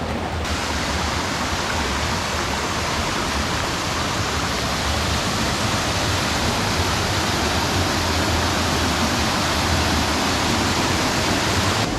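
Steady rush of a jungle river and waterfall, water falling and running over rocks, with no break; the hiss turns suddenly brighter about half a second in.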